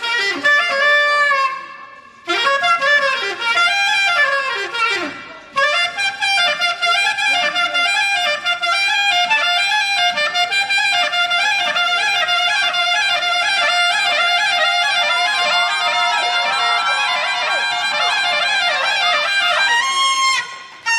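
Saxophone playing a smooth jazz melody with accompaniment: two short phrases, then a long unbroken passage around a held note. It stops abruptly near the end.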